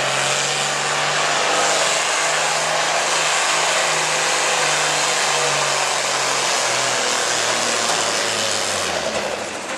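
Ford farm tractor's diesel engine running flat out under heavy load as it drags a weight-transfer sled: a loud, steady exhaust with a hissing edge. It eases off about nine seconds in.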